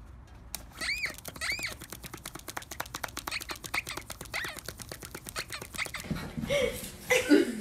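A tablet game for pets giving rapid, even clicking with a few squeaky chirps that rise and fall, as a dachshund puppy paws at the screen. About six seconds in, this cuts off and other sounds take over, including short pitched calls.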